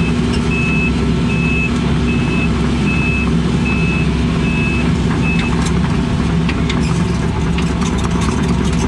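Case CX-80 excavator running steadily, heard from inside the cab, with its travel alarm beeping about once every 0.8 seconds as the machine tracks; the beeping stops about five and a half seconds in, and scattered clicks and crackles follow.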